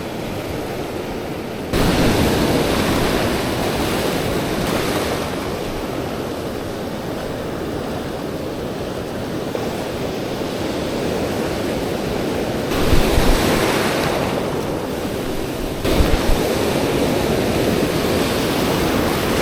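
Ocean surf breaking and washing up the beach, a steady loud rush that gets suddenly louder about two seconds in. Wind buffets the microphone in two short low bumps in the second half.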